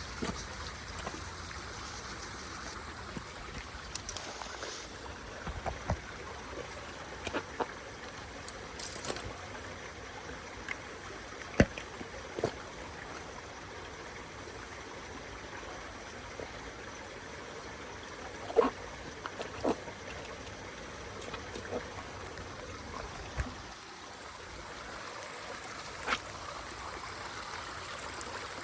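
Steady rush of flowing water, with scattered short clicks and knocks on top, loudest about a third of the way in and again about two-thirds in.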